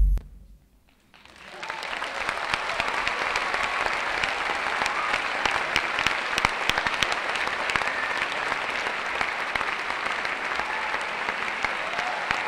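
Electronic music stops abruptly. About a second later a theatre audience starts applauding and keeps clapping steadily.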